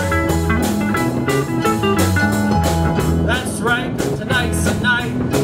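Live blues band playing an instrumental passage: electric guitar and bass guitar over a steady drum-kit beat. About three seconds in, a lead line with bending notes comes in over the band.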